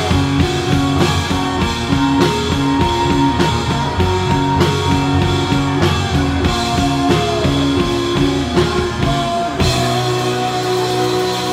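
Rock band playing an instrumental passage, with a drum kit keeping a steady beat under held pitched notes; about ten seconds in the drums stop and held chords ring on.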